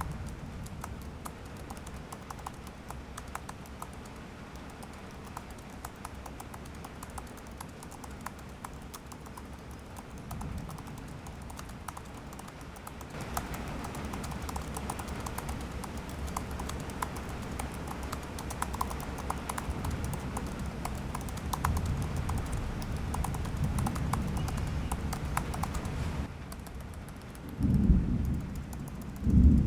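Fast continuous typing on a muted keyboard: a dense patter of soft keystroke clicks. A little before halfway the typing gets louder and brighter, and near the end there are two low thumps.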